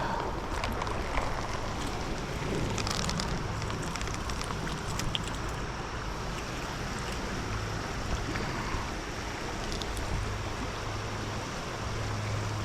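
Fast stream water rushing steadily over rocks, an even continuous wash, with some wind rumble on the microphone.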